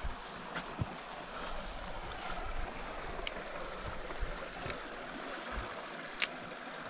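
River water running over rocks, a steady rushing, with a few soft thumps and two sharp ticks.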